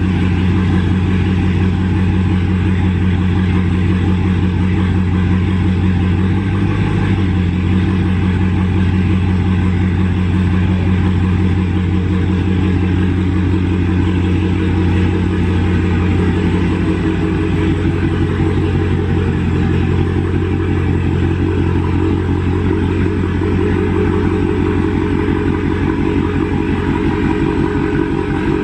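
2019 Dodge Charger Scat Pack's 6.4-litre HEMI V8 idling steadily after a cold start, its exhaust loud through a mid-muffler delete and catless midpipes.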